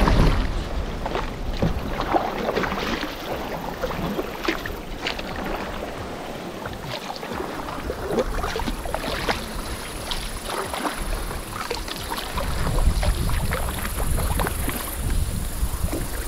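Water splashing and sloshing in irregular small bursts, with a low wind rumble on the microphone at the start and again in the second half.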